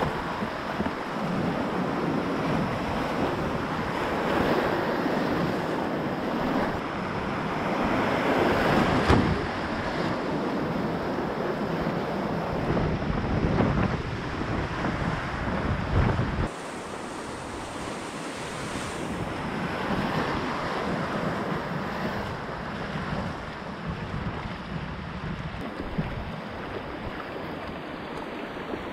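Whitewater rapids rushing and splashing around a kayak, with wind buffeting the microphone. The noise swells twice and then drops suddenly a little over halfway through.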